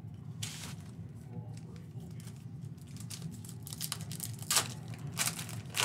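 A foil trading-card pack wrapper being torn open by hand, crinkling in short crackles. There is one crackle about half a second in, then a run of them from about four seconds in, with the loudest rips near the end.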